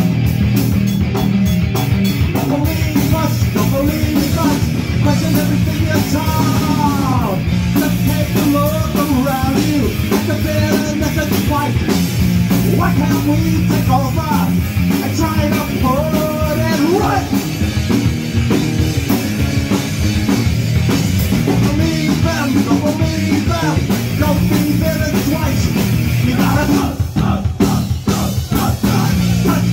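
Live punk rock band playing loud, with electric guitars, bass and a drum kit. Melodic lines bend in pitch over the steady bass and drums.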